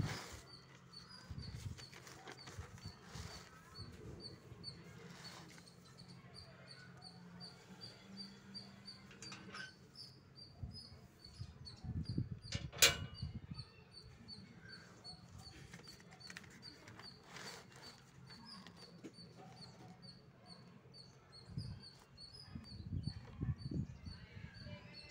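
Paper notebook pages being handled and turned, soft rustles with a single sharp click about halfway through.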